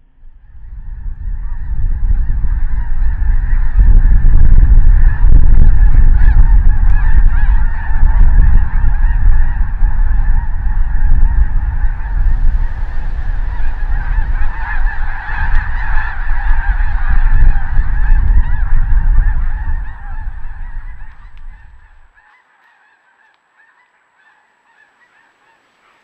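A huge flock of snow geese calling as it takes flight: a dense, continuous din of honking with a heavy low rumble underneath. It swells up over the first couple of seconds and cuts off about 22 seconds in.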